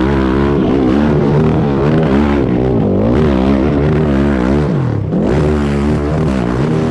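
High-powered hillclimb motorcycle engine revving hard, its pitch rising and falling again and again as the throttle is worked, with a short drop about five seconds in before it climbs again.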